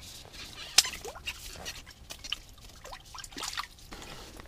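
Water dripping and splashing lightly in an ice-fishing hole as a bluegill is lifted out on a jig, in a few scattered drips and small splashes.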